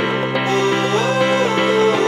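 Background music with sustained notes and a slowly moving melody.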